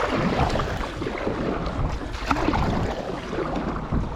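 Wind buffeting the microphone over the wash of the sea around a kayak, a steady rushing noise with a low rumble.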